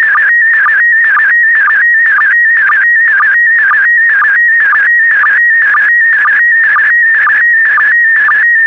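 Slow-scan television (SSTV) signal in PD120 mode sending image lines: a loud, steady electronic tone that wavers in pitch around 2 kHz as it carries the picture. A short, lower sync pip breaks it about twice a second.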